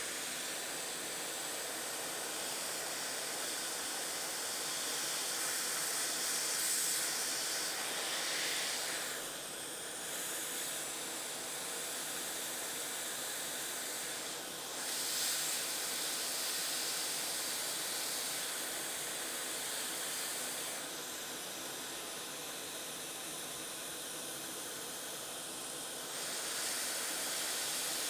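ATTEN ST-862D hot air station blowing a steady hiss of hot air from its nozzle at 400 °C, heating a coil on a circuit board to desolder it; the hiss swells a little now and then.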